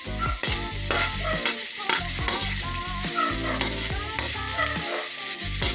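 Sliced onion and minced ginger sizzling in hot oil in a metal wok, stirred with a metal spoon that scrapes across the pan: the start of a sauté.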